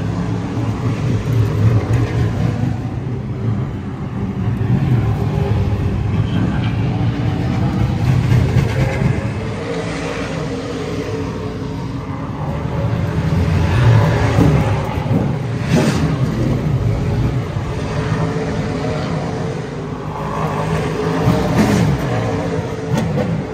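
Super late model race cars' V8 engines running at low speed as the cars roll past, rising and falling with occasional sharp throttle blips.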